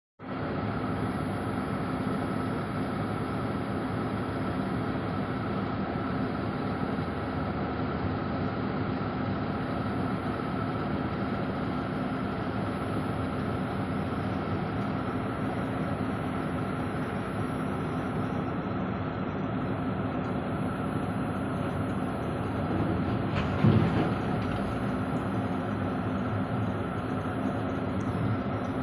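Heavy truck under way: steady engine and road noise, with one brief louder knock about three-quarters of the way through.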